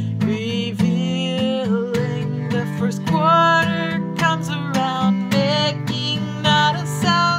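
A woman singing along to her own strummed steel-string acoustic guitar, holding long, sliding sung notes over steady chords.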